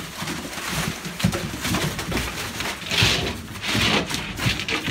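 Several young dogs play-fighting right at the camera, making short, irregular grunting noises. Newspaper rustles under their paws a few times.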